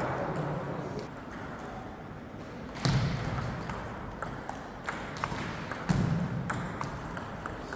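Table tennis ball clicking off bats and table in a rally, a quick series of sharp ticks, mostly in the second half, in a large echoing hall. Two louder, duller thumps come about three seconds in and again about six seconds in.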